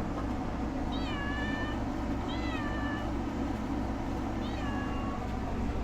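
Domestic cat meowing three times, short calls a second or two apart that rise and then fall in pitch.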